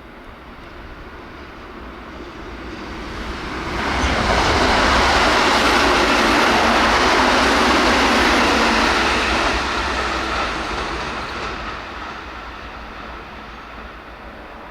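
Keihan 1000 series electric train passing through at about 106 km/h. The rush of wheels on rail builds over a few seconds, stays loudest for about five seconds, then fades away.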